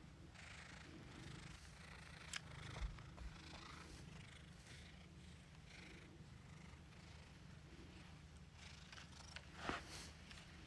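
Domestic cat purring steadily and faintly, close up, while it rubs against a person's legs, with soft rustles of fur against clothing and two brief clicks.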